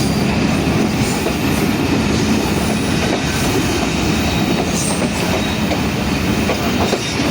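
Pakistan Railways passenger train running along the track: a steady rumble and clatter of the coach and its wheels on the rails.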